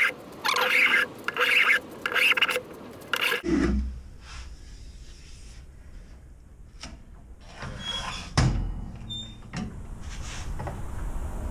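Metal hand plane shaving a wooden frame moulding: about five quick scraping strokes in the first three and a half seconds, then quieter handling with a few knocks and one louder thump about eight seconds in.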